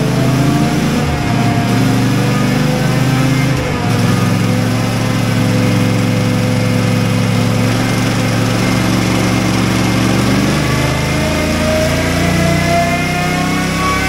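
CFMoto 450MT's parallel-twin engine running in gear on a roller dyno, holding steady revs. From about two-thirds of the way in, the revs climb steadily as a power run begins.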